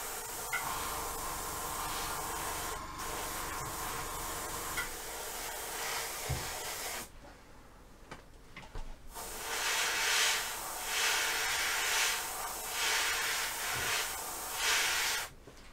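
Airbrush spraying hairspray onto a plastic model as a chipping-fluid layer. A steady hiss of air for about seven seconds, a short pause, then a run of short bursts about once a second that stop near the end.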